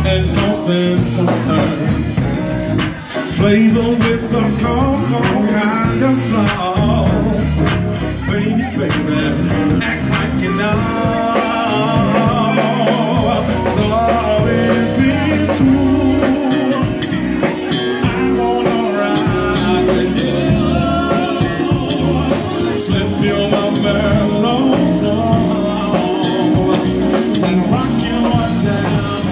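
Live band playing loud and steady: drum kit, electric bass and keyboard, with a man singing over them.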